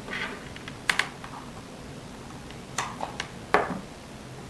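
A few light, sharp clicks and taps, in a pair about a second in and a cluster around three seconds in: small plastic parts being handled while the power is connected to the Wi-Fi camera.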